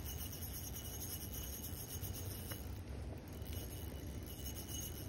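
Spinning reel being cranked to bring in a hooked trout: a fine, high-pitched whir and ticking from the reel's gears that drops out briefly a few times as the turning pauses, over a low rumble.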